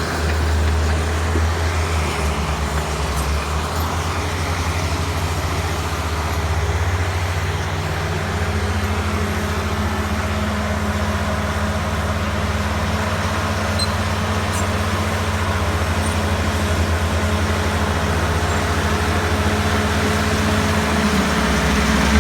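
Bulldozer diesel engine running steadily under load. Its low note shifts slightly about eight seconds in and again near the end.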